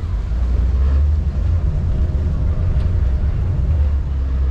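Low, steady rumble of a vaporetto water bus under way, its engine and the wind on the microphone making an uneven low drone.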